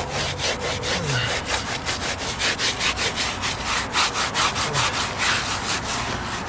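A wet sponge scrubbed back and forth against a fresh cement patch, a scratchy rubbing in quick even strokes several times a second. This is the final sponging that fills the pinholes in the cement surface.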